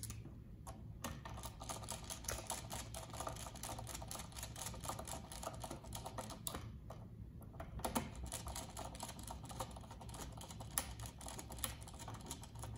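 Small screwdriver working the screws of a plastic screw terminal block on an access-control controller, a run of small clicks and scrapes as stripped wires are clamped in. There is a short pause about six seconds in.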